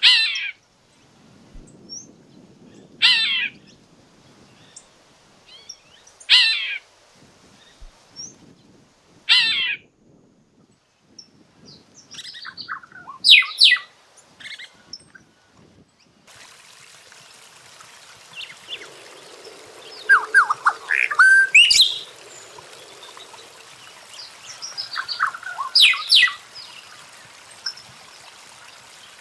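Cacique (tecelão) calls: a short, loud call repeated about every three seconds, then a double call. Midway the background hiss rises suddenly and a busier run of varied calls and chatters follows, loudest a little past two-thirds of the way.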